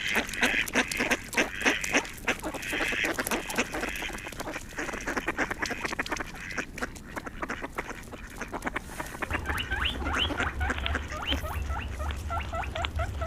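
Ducks quacking in a fast, crowded run of calls. About nine seconds in, a string of short, high calls that rise and fall takes over, with a low hum beneath.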